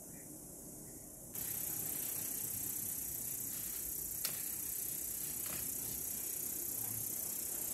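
Leaves being picked by hand from a tree branch, with a sharp snap about four seconds in and a fainter one a second later, over a steady high hiss.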